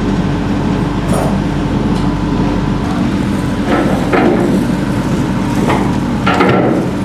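Steady drone of a veteran boat's engine running, with a few short louder rushes of noise in the second half.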